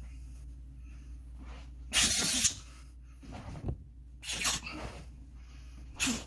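A man's forceful, breathy exhalations timed with fast strikes, about four of them, the loudest and longest about two seconds in.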